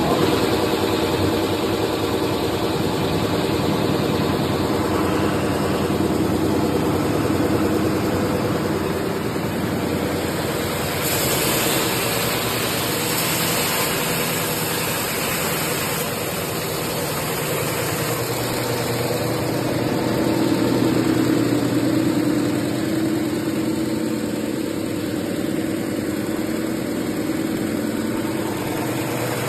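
Conveyor-fed metal sanding machine running steadily, its motor and belt humming under a broad hiss. From about eleven seconds in the hiss grows brighter and higher.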